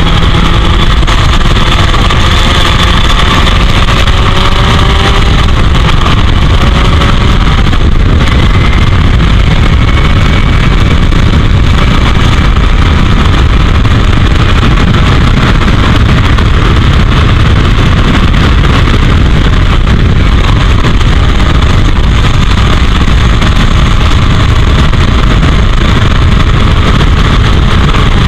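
Heavy wind buffeting on the microphone of an open-cockpit racing car at speed, covering the Royale S2 sports racer's four-cylinder engine, whose note rises and falls faintly with the gear changes in the first half.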